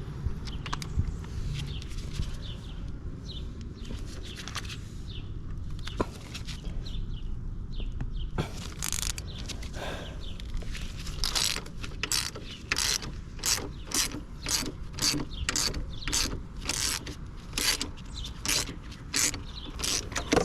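Hand socket ratchet on an extension clicking through its pawl in short back-and-forth strokes, about two a second, on a motorcycle frame bolt. Before that, a few scattered clicks and knocks of the tool being fitted.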